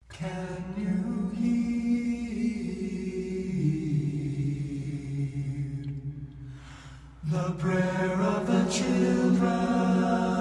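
Background music of unaccompanied voices singing long held notes in a slow chant. The voices thin out about two-thirds of the way through and come back fuller a moment later.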